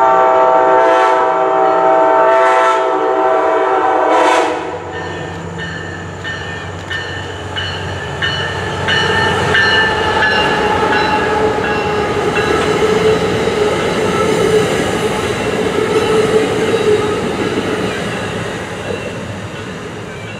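A MARC Siemens Charger SC44 locomotive's horn sounds a loud chord that cuts off about four seconds in. Then the train's Kawasaki bilevel coaches roll by, their wheels clicking over rail joints with a steady rumble and whine. The sound fades slightly near the end as the train draws away.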